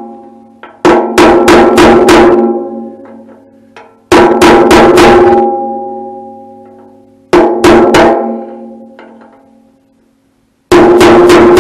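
Hammer blows on a cold chisel, cutting out a broken-off sediment-bowl fitting from a tractor fuel tank's threaded opening; the strikes come in quick bursts of three to five, each burst leaving a ringing that dies away.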